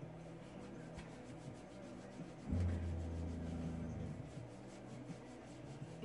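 Handheld shower sprayer trickling water while a hand rubs the soap out of wet hair. A low steady hum starts suddenly about two and a half seconds in and stops a second and a half later.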